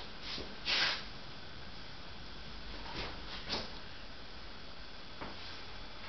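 Steady room hiss with a few brief soft noises, the loudest just under a second in.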